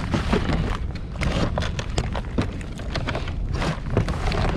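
Wind buffeting the action camera's microphone as a steady low rumble, with many short knocks and clatters from gear being handled in the kayak.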